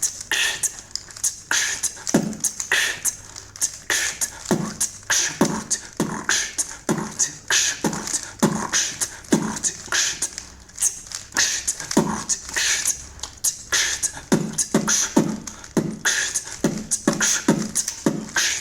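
Vocal beatboxing: a steady beat of low kick-drum sounds with sharp, hissing snare and hi-hat sounds made with the mouth between them, the pattern growing busier near the end.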